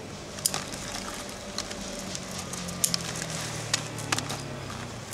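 Bonsai scissors pruning a Satsuki azalea: a handful of sharp, irregular snips as the fine twigs are cut, over a low steady hum.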